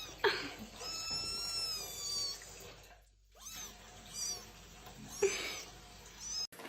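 A cat meowing several times, including one long drawn-out meow about a second in and shorter meows later.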